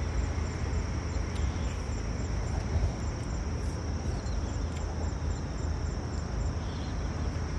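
Insects in grassland calling steadily: a continuous high buzz, with a second high chirp repeating about four times a second. Underneath is a steady low rumble, with a few faint clicks.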